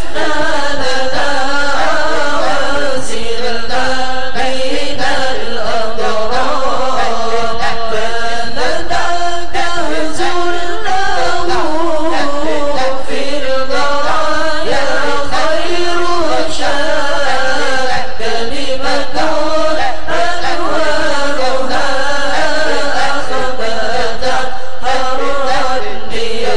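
A congregation chanting an Arabic sholawat, a melodious devotional hymn in praise of the Prophet, sung continuously.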